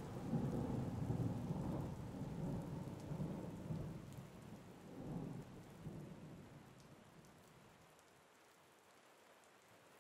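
Thunderstorm sound effect: low thunder rumbling in swells over steady rain, fading out from about halfway through to a faint hiss.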